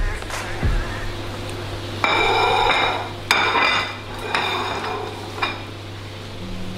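Plates clattering and clinking on a countertop as donuts are grabbed from them: a few separate knocks that ring briefly, the sharpest about three seconds in, over a steady low hum.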